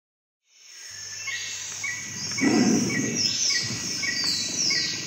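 Jungle ambience fading in from silence: high insect buzzing, a bird chirping in a regular rhythm about every half second or so, and a few falling whistled calls. A low rumble swells about two and a half seconds in.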